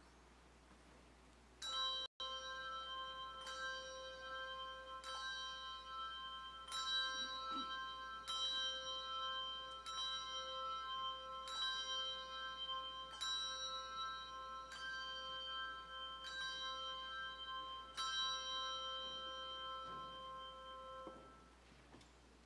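A single bell tolled over and over, about a dozen strokes roughly a second and a half apart, each one ringing on into the next at the same pitch. The ringing stops sharply near the end.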